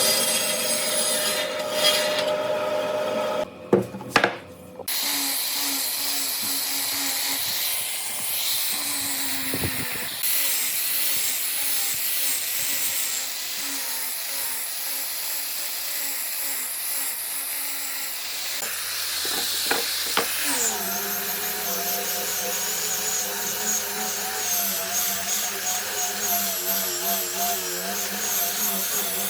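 Woodworking tools working pallet wood: sawing and rubbing sounds, broken about four seconds in by a short lull with a few sharp knocks. From about two-thirds of the way through, a motor's steady hum runs under the work.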